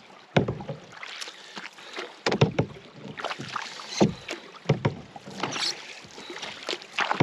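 Canoe paddles dipping and splashing in the water, with sharp knocks at uneven intervals, about one stroke a second, as two paddlers stroke out of time.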